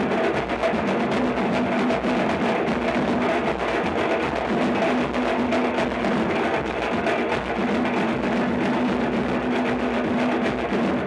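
Live Afro-Brazilian drum ensemble playing a dense, continuous rhythm on hand and shoulder-slung drums, with a steady pitched note running underneath.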